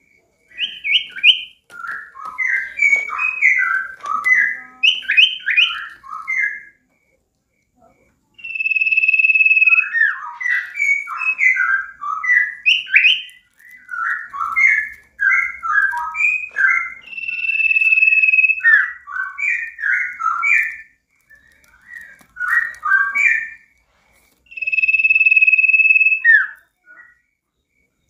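A caged sirtu (common iora) in full song: quick runs of short chirping notes, broken three times by a long, level whistle held for about a second and a half.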